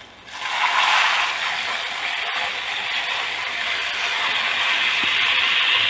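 Tamarind water poured into a pan of hot coconut oil with fried onions and spices, sizzling: a steady hiss that starts about half a second in.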